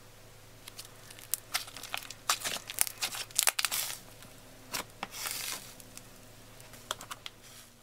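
Thick green slime squeezed and stretched by hand, giving irregular crackles and pops, densest from about one to four seconds in and in a short burst around five seconds.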